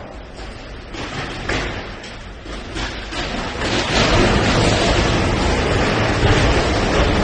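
A ship's lifeboat grinding and crunching against a steel crane structure: a few sharp knocks at first, then a louder continuous scraping and crunching from about four seconds in, as the boat is wrenched off its davits.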